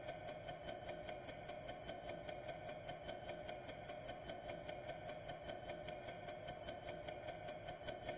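Clock ticking: fast, even ticks, several a second, over a steady faint hum.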